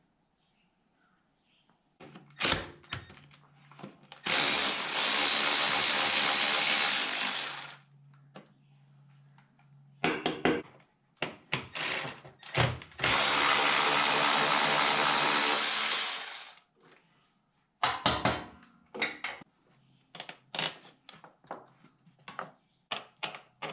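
Cordless power tool running in two steady spells of about three and a half seconds each, with short trigger blips and clicking between and after them.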